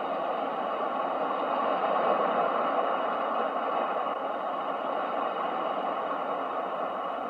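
Steady rushing roar of ocean surf, swelling gently about two seconds in and then easing.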